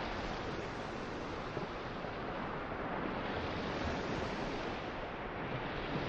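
Small ocean waves breaking and washing up a sandy beach, the hiss of the surf swelling twice, about three seconds apart.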